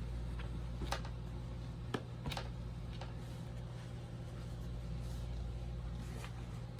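Quiet room tone: a low steady hum with a few faint, scattered light clicks.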